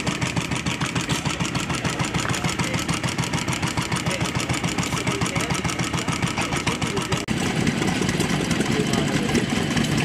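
Antique stationary gas engines running with a steady, rapid beat of several pulses a second. The sound changes abruptly about seven seconds in.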